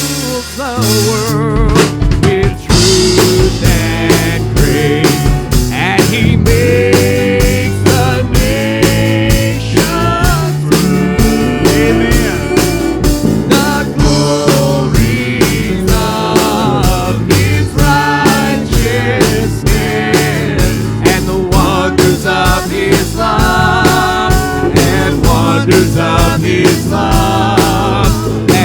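Live church praise band playing with a full drum kit keeping a steady beat under bass and melody.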